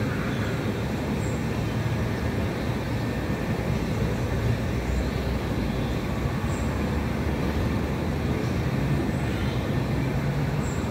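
Steady low outdoor rumble with no clear events, of the kind made by wind on the microphone or distant road traffic.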